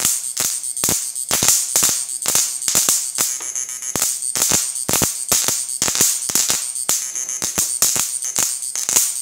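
The high-voltage output of a homemade electric fish-shocking machine is arcing onto a metal plate, giving an irregular run of sharp cracking snaps, several a second, over a steady high whine.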